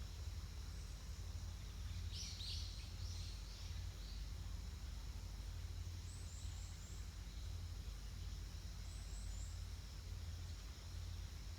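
Outdoor ambience with a steady low rumble, over which a bird gives a quick run of about five calls about two seconds in. Later come two short series of four high, thin chirps.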